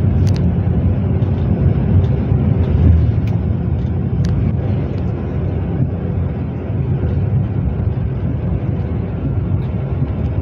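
A car driving at road speed, heard from inside the cabin: a steady low rumble of tyres and engine.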